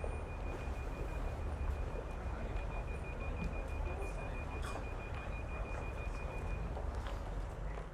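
High-street traffic ambience: a steady low rumble of passing vehicles, with a rapid, high electronic beeping running through most of it and stopping a little before the end.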